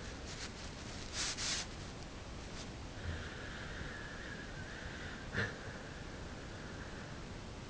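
A sleeping dog snoring: a short snort a little over a second in, then a long high whistling note on the breath from about three seconds in, broken by a brief click partway through.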